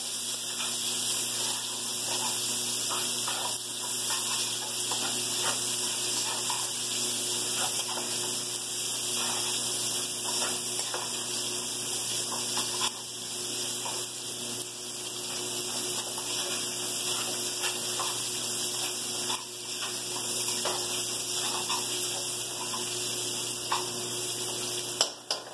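Onion, garlic and ginger frying in hot oil in a pot: a steady sizzle, with a few faint clicks and a low hum underneath.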